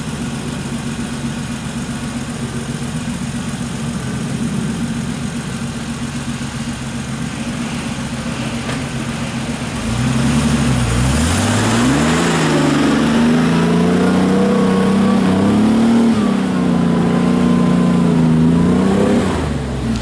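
Isuzu Trooper's engine idling steadily, then about halfway through revving up as the truck pulls up the trail, its pitch rising and wavering for several seconds before dropping back near the end.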